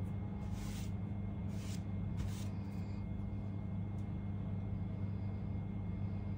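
Steady low background hum in a room, with a few short, soft rustles in the first three seconds.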